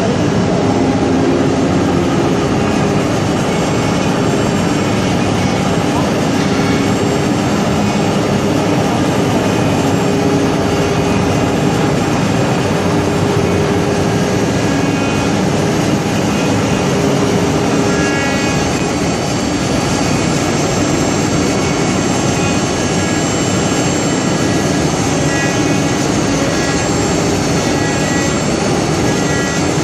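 Multi-spindle 4-axis wood CNC router running and cutting wood: a loud, steady machine noise with constant high spindle whine.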